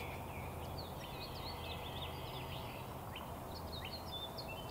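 Small birds chirping, a quick stream of short notes, over a steady low hum.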